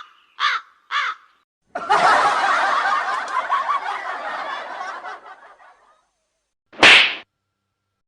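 Comedy sound effects: three short calls about half a second apart, then a burst of crowd laughter lasting about four seconds and fading away, and near the end a single short, sharp sound.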